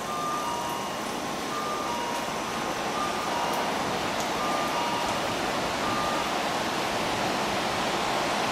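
Railway station ambience: a steady rumble and hiss that swells as a train approaches, with a two-tone electronic warning chime (a higher note, then a lower one) repeating about every one and a half seconds and fading out after about six seconds.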